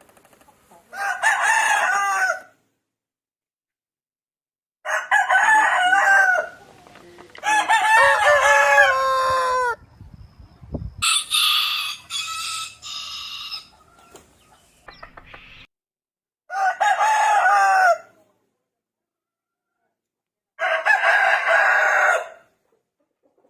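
Rooster crowing several times, each crow lasting one to three seconds, separated by stretches of silence; one call near the middle is higher-pitched than the rest.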